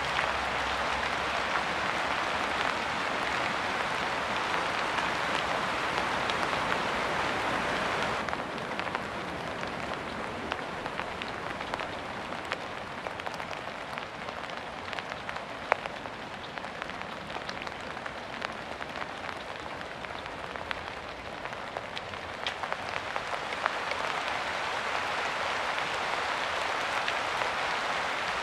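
Rain falling in a steady dense hiss. About eight seconds in it thins, so that individual drops stand out as sharp ticks, and near the end it thickens again.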